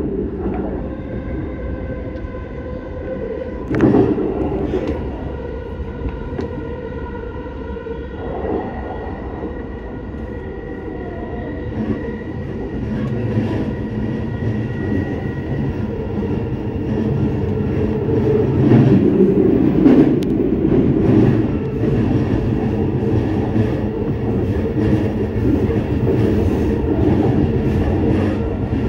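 Chūō Rapid Line E233-series electric train running, heard from just behind the driver's cab: a steady rumble of wheels on rail under a constant hum. Sharp clacks over rail joints and points come now and then, the loudest about four seconds in, and the running noise swells for a few seconds around the twenty-second mark.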